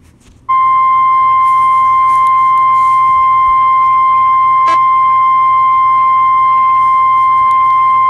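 NOAA Weather Radio warning alarm tone: a single loud, steady, high beep. It begins about half a second in, holds for over seven seconds and cuts off abruptly. It is the alert signal that comes just before a National Weather Service warning broadcast, here a special marine warning.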